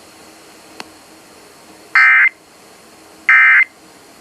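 Emergency Alert System end-of-message data bursts: two short, buzzy digital tone bursts of about a third of a second each, about 1.3 seconds apart, over a faint hiss, marking the end of the alert.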